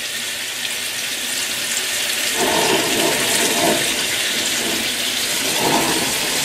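Flour-coated pork chops shallow-frying in hot vegetable oil in a wok over medium-high heat: a steady sizzle that swells a little about two and a half seconds in and again near the end.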